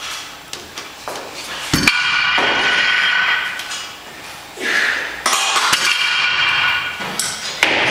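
Stacked iron weight plates on a loading pin clank and ring as they are lifted and set down with a Rolling Thunder revolving grip handle. There is a sharp clank about two seconds in that rings for over a second, and a second clank about five seconds in that rings for about two seconds.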